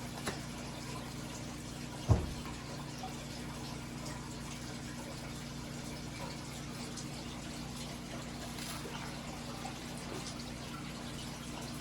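Steady low hum and hiss of kitchen room noise, with a single sharp thump about two seconds in and a faint click near the start.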